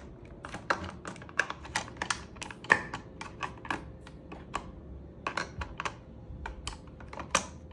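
A quick run of small sharp clicks, about four a second, from hands working the metal parts of a WE AK PMC gas blowback airsoft rifle.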